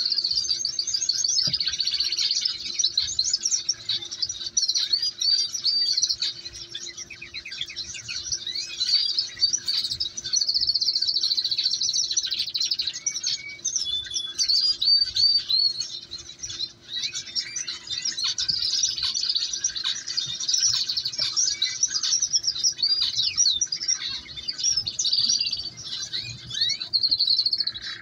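Canaries chirping and twittering almost without pause, many rapid high-pitched notes and short trills, with a brief lull about two-thirds of the way through.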